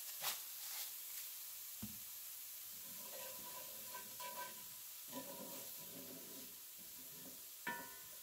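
Diced onion, celery and bell pepper sizzling softly in a cast-iron skillet while a wooden spoon stirs and scrapes them around the pan. A sharp clink of the spoon against the pan near the end.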